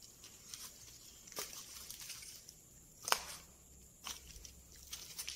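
Footsteps crunching over broken tiles and rubble: several uneven steps about a second apart, the loudest about three seconds in.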